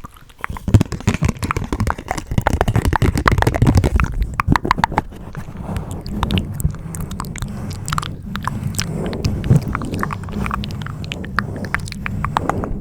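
ASMR mouth sounds close to the microphone: a rapid, dense run of wet clicks and smacks, loud and continuous.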